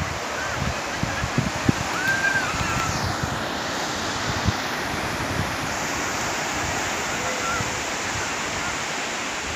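Sea surf breaking on a sandy beach, a steady wash of waves, with wind buffeting the microphone.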